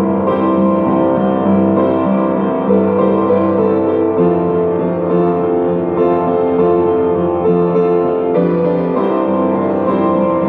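Piano playing a right-hand melody over a simple bass part, with no singing.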